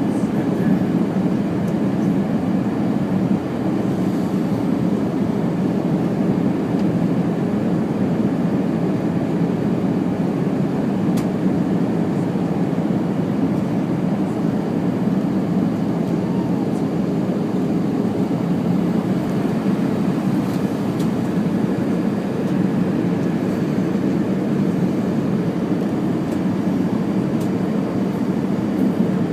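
Steady low drone of an Airbus A319 airliner in flight, its engine and airflow noise running evenly without change.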